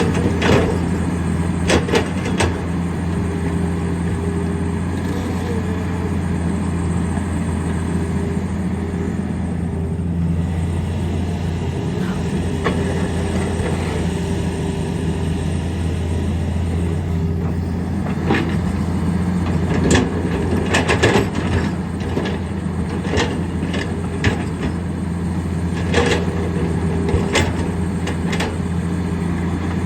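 Tata Hitachi hydraulic excavator's diesel engine running steadily under load, with repeated sharp knocks and clatters of rock against the steel bucket, most of them in the second half.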